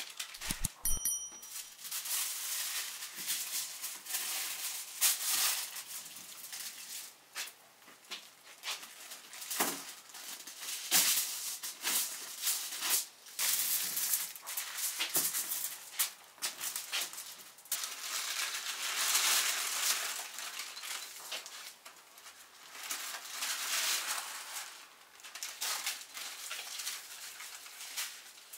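Aluminium foil and baking paper being unrolled and handled on a tabletop, crinkling and rustling in irregular bursts.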